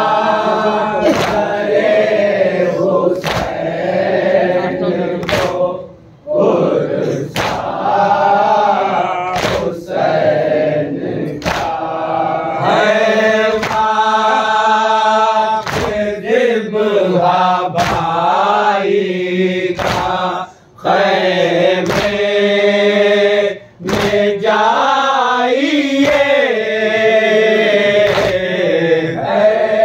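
Men chanting a Shia noha in unison, lamenting Imam Husain, with rhythmic chest-beating (matam) about once a second. The chanting breaks off briefly between lines.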